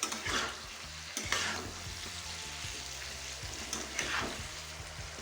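Diced pumpkin and pui (Malabar spinach) stems sizzling in oil in a kadai, with a spatula scraping through them in three strokes.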